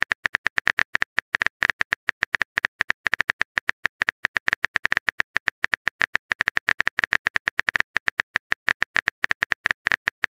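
Phone keyboard typing sound effect: a rapid, uneven run of short, sharp key-tap clicks as a text message is typed out letter by letter.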